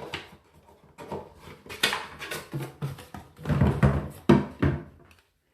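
Hands handling a plastic hair-dryer diffuser attachment and its packaging: irregular rustling, knocks and clicks, with the loudest knocks a little past the middle, cutting off near the end.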